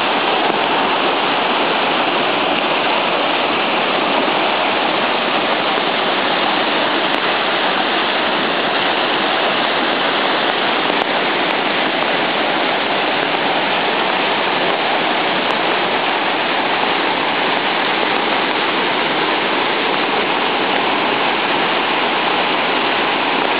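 Rain-swollen creek in flood: fast, muddy floodwater rushing steadily past trees and brush.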